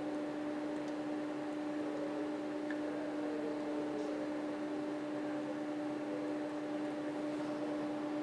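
Steady, even hum with a faint hiss behind it, a room or equipment hum in a pause between speech, with a couple of very faint ticks.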